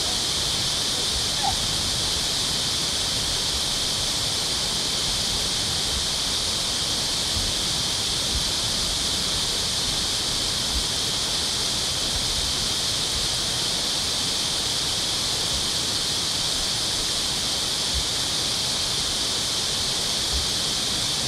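Steady rushing of water pouring through a dam.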